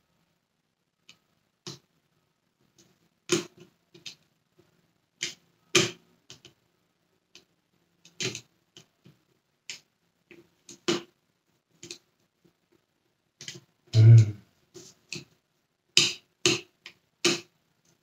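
Irregular sharp clicks and taps of small screws and a screwdriver against the plastic housing of a Dyson Cinetic Big Ball vacuum cleaner as it is screwed back together, with one heavier knock about fourteen seconds in.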